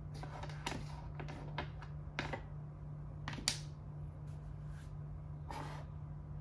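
Makruk (Thai chess) pieces being moved by hand on the board: a series of light clicks and taps as pieces are picked up and set down, the sharpest about three and a half seconds in. A steady low hum runs underneath.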